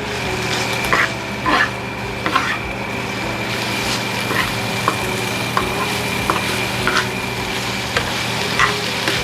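Chicken filling sizzling as it fries in a pan, stirred with a utensil that clacks against the pan now and then.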